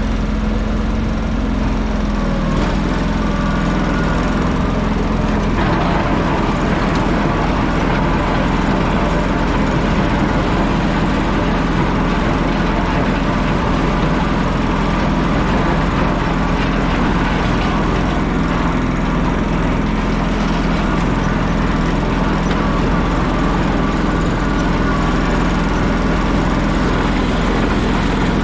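An engine running steadily and loudly, its pitch dropping slightly about two seconds in.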